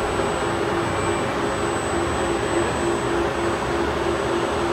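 Heavy machinery running steadily: a loud, even rush with a low hum that pulses at a regular beat, and a faint thin high whine.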